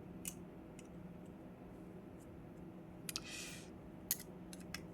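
Faint, scattered small clicks and a brief scrape of a balisong knife's pivot parts and washers being handled while the washers are swapped out.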